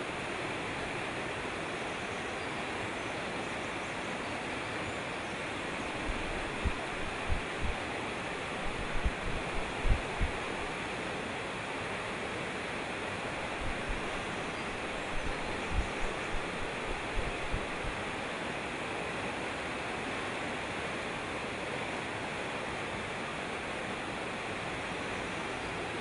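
A mountain stream rushing steadily over rocks in rapids. Partway through comes a run of short, low thumps, the loudest about ten seconds in.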